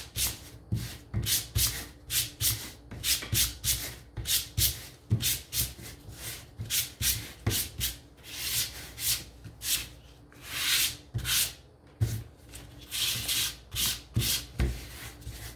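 Sanding sponge rubbed by hand in quick, light back-and-forth strokes over a painted wooden windmill cutout, about two to three strokes a second, smoothing down a rough textured paint finish.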